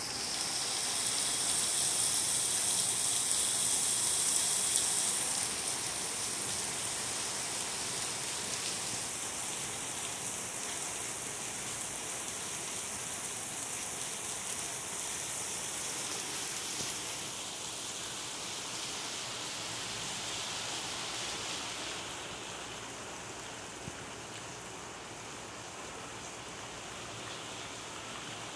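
Heavy rain pouring steadily onto pavement and parked cars, a dense even hiss. It is heaviest in the first few seconds and eases gradually, settling quieter near the end.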